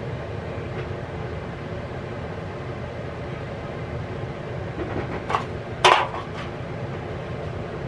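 A serving utensil clinks against the cookware twice while food is dished up, about five and six seconds in, the second clink the louder. A steady kitchen hum runs underneath.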